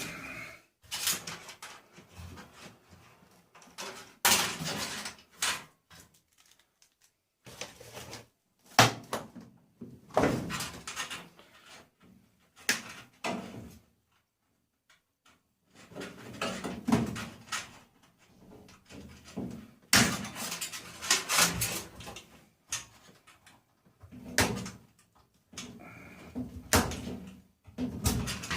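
Irregular knocks, clatters and rattles of metal parts being handled and pulled about while a tumble dryer is stripped for scrap, with a brief quiet gap about halfway through.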